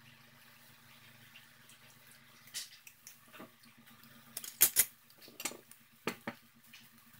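Off-camera dishes or utensils clinking and clattering a few times, the loudest a sharp pair about halfway through, over a low steady hum.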